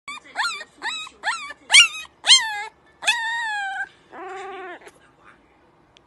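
A small animal's high-pitched cries: about six short squeals in quick succession, each rising and then dropping, then a longer cry that slowly falls in pitch, and a lower drawn-out whine near the end.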